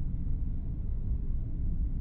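Steady low background rumble with no distinct sounds in it.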